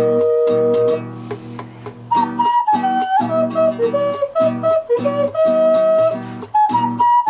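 Wooden double ocarina playing a quick, upbeat melody over a strummed guitar backing: two notes held together at the start, a short break about a second in, then a fast run of notes.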